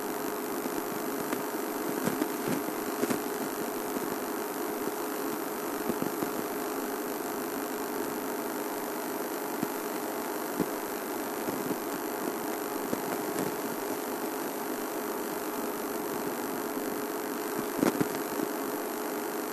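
Game-drive vehicle's engine idling with a steady hum, with a few faint knocks about two and three seconds in and again near the end.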